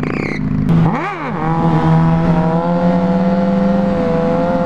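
Sport motorcycle engines: an idle at first, then a quick rev up and back down about a second in, followed by a steady engine note held at constant revs as the bikes ride along.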